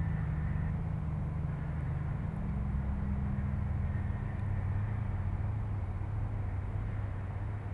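A low, steady rumbling hum, with sustained deep tones and no distinct events.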